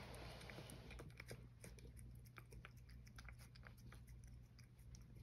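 A cat eating from a small bowl: faint, irregular chewing with many light clicks.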